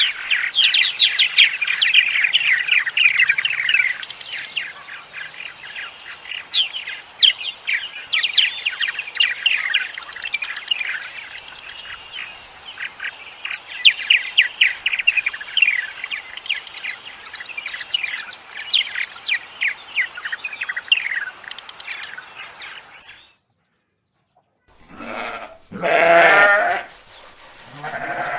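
Many small birds chirping and twittering rapidly for most of the stretch. The sound cuts off briefly, then a goat bleats loudly once near the end.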